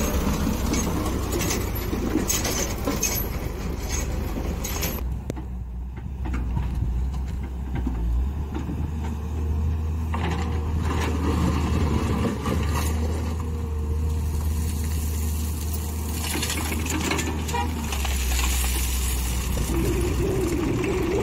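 Diesel engines of a Massey Ferguson tractor and a Hyundai wheeled excavator running in a steady low drone, with scattered clatter. Near the end the engine note rises.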